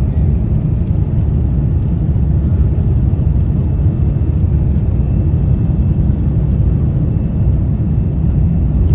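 Steady low rumble of a jet airliner moving on the ground, heard from inside the passenger cabin.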